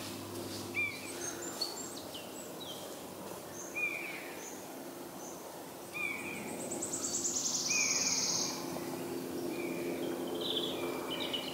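Several songbirds singing: short chirping phrases repeated every second or so, with a fast, buzzy trill about halfway through, over a faint steady low hum.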